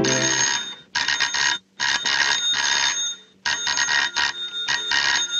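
Electric doorbell ringing in about four long bursts, a rapid metallic rattle, as a cartoon sound effect.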